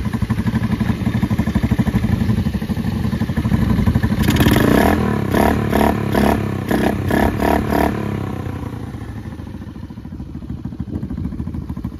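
Honda Navi's 109cc single-cylinder four-stroke engine running through a new-version Vance & Hines exhaust: idling, then revved in a quick series of throttle blips for about four seconds from around four seconds in, then back to idle, a little fainter near the end.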